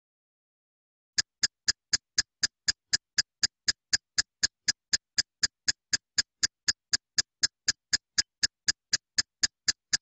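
Countdown timer sound effect: a steady, clock-like ticking at about four ticks a second, starting about a second in.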